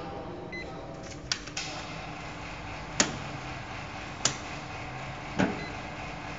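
Horizontal flow packing machine humming steadily, with a few sharp mechanical clicks; the three loudest come about a second and a quarter apart in the second half.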